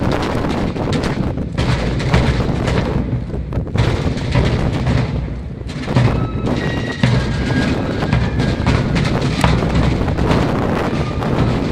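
Fife and drum band playing a march: snare drums and a bass drum beat throughout, and the fifes' high notes come in about six seconds in. Heavy wind rumbles on the microphone.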